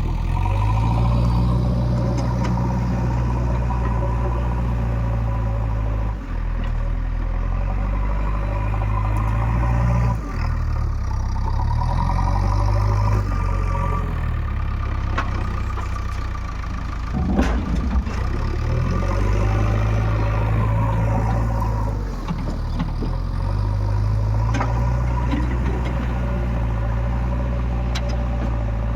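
Backhoe loader's diesel engine running under working load, its speed stepping up and down every few seconds as the hydraulics take up and let off. A few metal clanks cut through, the loudest cluster a little past the middle.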